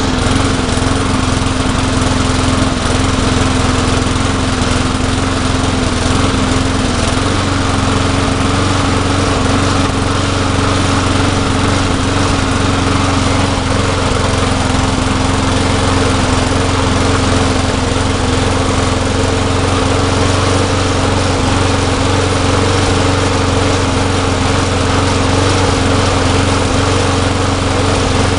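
Briggs & Stratton push-mower engine running steadily at a fixed speed after its governor spring has been re-tensioned. The owner suspects its carburetor is not giving it enough gas.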